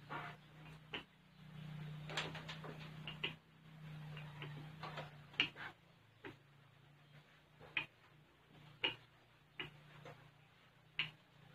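Rolling pin working dough on a wooden table: a low rumble in stretches as it rolls, with scattered knocks and taps at irregular intervals.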